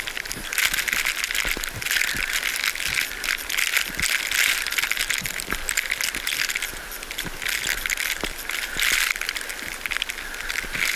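Footsteps trudging through deep, fresh snow, heard as a crunching, crackling rattle through a GoPro Hero 3 Silver. Louder surges come roughly every second or so over a steady hiss.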